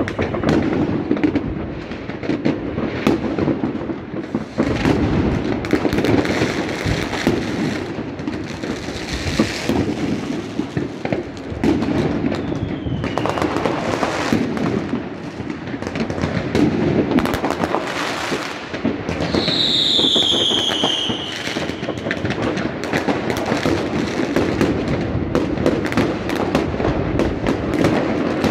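Fireworks and firecrackers going off all over a city at once: a dense, continuous crackle of bangs. About two-thirds of the way through, a whistling firework sounds loudly, its pitch falling.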